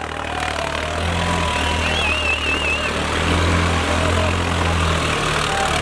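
Swaraj 855 tractor's diesel engine running in a steady low drone, holding the tractor reared up on its rear wheels. Faint crowd voices and a brief warbling whistle about two seconds in.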